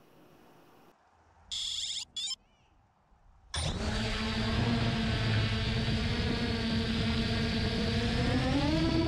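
Two short electronic beeps, then a 3DR Solo quadcopter's motors and propellers start suddenly and run with a loud steady whine, heard close up from the GoPro mounted on the drone. Near the end the pitch rises as the throttle comes up for takeoff.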